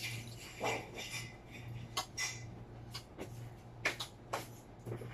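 Eating at a table: scattered short clicks and smacks of chewing, lips and fingers, with light knocks of dishes and utensils, over a steady low hum.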